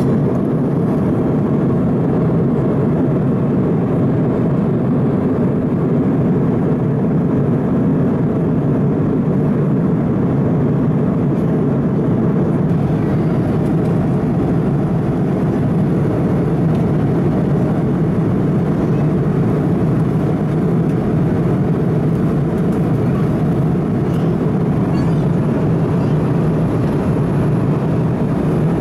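Airbus A330-200 cabin noise in cruise flight: a steady, low, even roar heard from inside the cabin.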